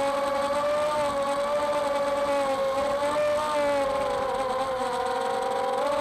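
Four Emax RS2205-2600kV brushless motors of an FPV racing quadcopter spinning 4-inch propellers: a steady buzzing whine whose pitch sags a little, then climbs as the throttle comes up near the end.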